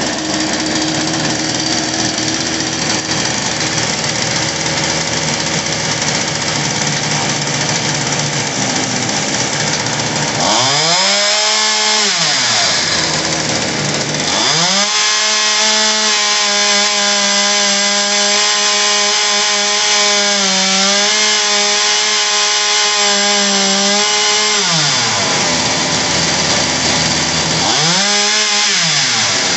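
Homelite Pro 4620C 46cc chainsaw's two-stroke engine idling during carburetor adjustment. About ten seconds in it revs up and drops back, then is held at high revs for about ten seconds and falls back to idle, with one more short rev near the end. It is a fresh carburetor whose idle sits a little high, and it is being brought down with the adjustment screws.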